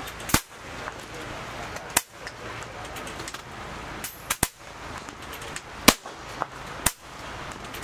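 PCP air rifles firing at benchrest: about six sharp, short reports at uneven intervals, two of them in quick succession just past the middle, over a steady background noise.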